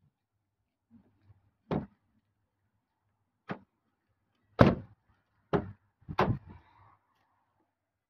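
Six sharp knocks and thumps at uneven intervals, with a gap between most of them, the loudest a little past halfway and the last two close together.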